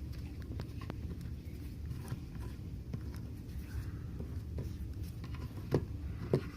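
Faint scattered clicks and taps from hands and cotton working on a phone's glass, with two sharper ticks near the end, over a steady low hum.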